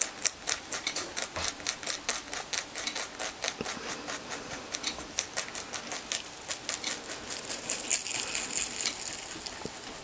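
Rabbit chewing fresh parsley: rapid, crisp crunching at about five bites a second, growing softer over the last few seconds.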